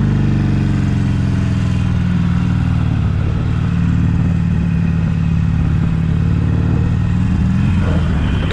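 Cruiser motorcycle's engine running steadily as it rides along, with its note rising near the end.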